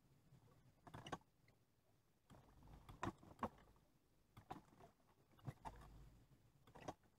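Near silence broken by about six faint, irregularly spaced clicks and knocks.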